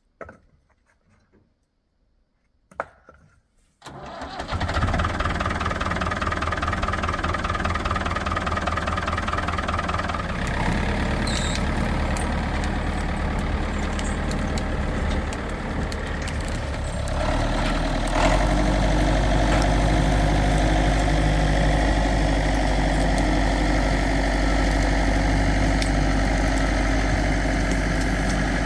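Diesel engine of a 1981 Case David Brown 4x4 tractor running steadily, coming in suddenly about four seconds in after near silence. About two-thirds of the way through it gets louder and deeper.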